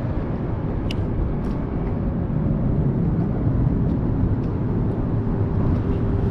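Steady low rumble of wind on the microphone over open water, with a couple of faint clicks about a second in.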